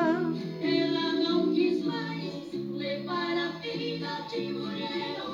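Sertanejo duo of brothers singing a song in high two-part harmony over instrumental accompaniment.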